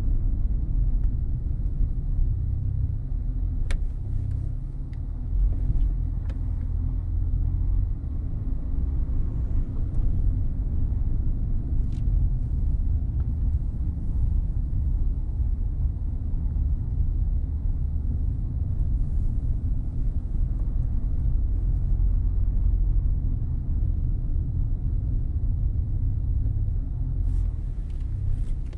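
Low, steady rumble of a car on the road, engine and tyre noise, with a few faint clicks.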